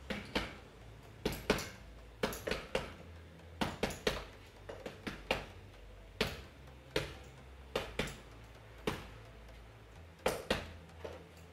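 A barefoot person shadowboxing on a tiled floor: a string of short, sharp slaps and taps from footwork and strikes, irregularly spaced at about one or two a second.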